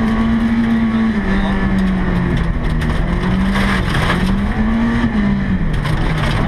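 Volvo 240 rally car's engine, heard from inside the cabin, running hard on a gravel stage. Its pitch rises and falls several times, with short clatters of gravel now and then.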